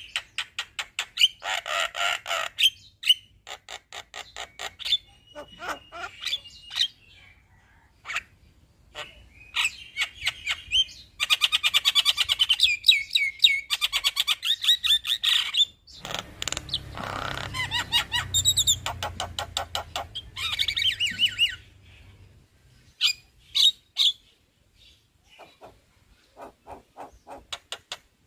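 Male Javan myna (jalak kebo) singing a long, varied song of rapid chattering notes, clicks and rolling trills, in bursts with short pauses; the longest fast roll comes about midway.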